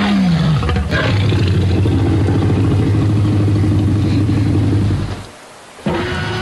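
Film sound effect of a Tyrannosaurus rex roaring: a long, loud roar that opens with a falling cry and settles into a steady deep rumble for about four seconds, breaks off about five seconds in, and a second roar starts near the end.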